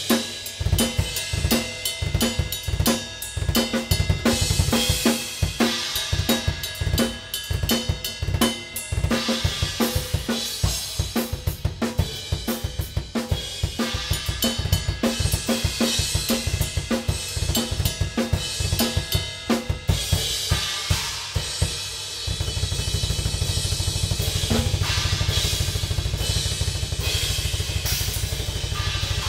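Acoustic drum kit played hard, with fast snare, tom and cymbal strokes over the bass drum. About twenty seconds in it changes to a fast, unbroken run of low bass-drum strokes under the cymbals.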